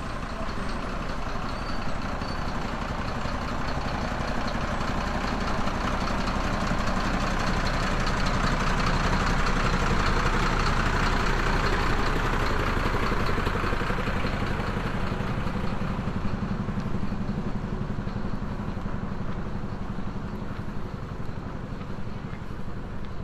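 A motor vehicle's engine running, growing louder toward the middle and then fading a little.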